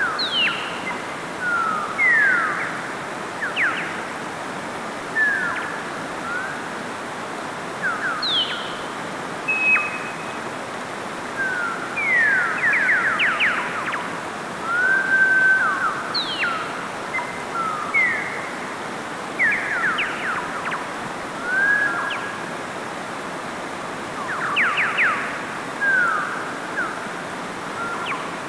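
Mountain stream running steadily over rocks, overlaid with frequent short high chirps and whistled glides, some falling and some rising, roughly one every second.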